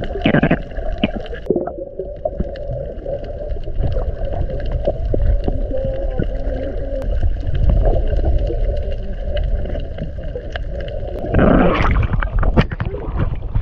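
Muffled underwater rumble and gurgling picked up by a camera held underwater, with faint scattered clicks. About eleven seconds in, the camera breaks the surface into a burst of splashing and open-air sea noise.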